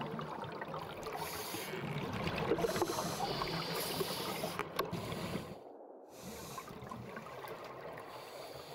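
Underwater ambience: a steady wash of water noise with fine crackling clicks. It cuts out briefly about six seconds in, then carries on a little quieter.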